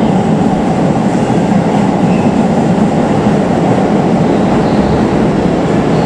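Keisei 3050-series electric train passing through the station at speed close alongside the platform: a loud, steady noise of wheels on rail and carriages rushing past.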